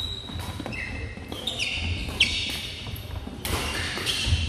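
Badminton rally on a hardwood gym floor: sneakers squeaking in short, high chirps as the players shift, feet thudding, and sharp racket strikes on the shuttlecock, the loudest a little past two seconds in.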